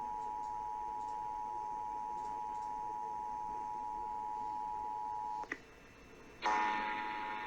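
Emergency Alert System attention signal: the two-tone 853 Hz and 960 Hz alert tone, held steady. It cuts off with a click about five and a half seconds in. About a second later it starts again, louder and harsher.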